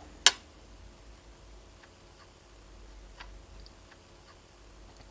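Small handling clicks while a fitness band is being reassembled: one sharp click just after the start, then a few faint ticks spread out through the rest.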